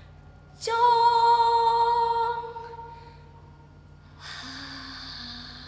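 A woman's voice singing one long held note, unaccompanied, starting suddenly about a second in and fading out after a couple of seconds. A softer, lower vocal sound comes in near the end.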